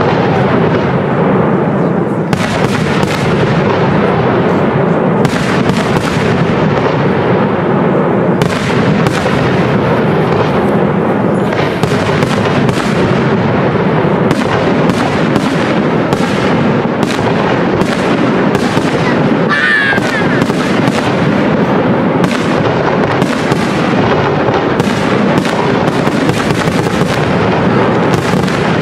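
Fireworks display: aerial shells bursting in quick succession, the reports so close together that they run into one continuous din.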